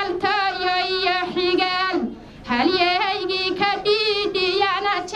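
A young woman singing a Somali song solo into a handheld microphone, with no instruments. She holds long notes with a wavering vibrato and takes a short breath about two seconds in.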